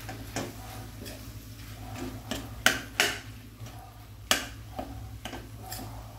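A metal spoon stirring in a stainless-steel kadai, mixing mashed boiled potatoes into the masala. It makes irregular clinks and scrapes against the pan, the sharpest about two and a half seconds in, again at three seconds and just past four seconds, over a low steady hum.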